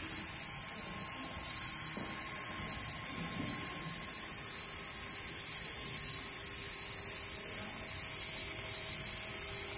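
Large-format Richpeace automatic sewing machine running: a steady high hiss with faint humming tones underneath.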